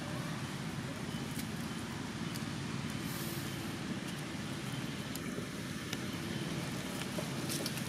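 Steady low outdoor background rumble with a few faint clicks.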